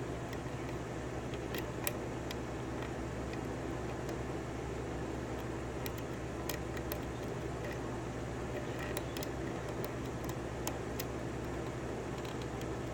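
A steady low hum runs throughout, with a few faint, scattered clicks from a lock pick working the pin stacks of a 5-pin Schlage pin-tumbler lock.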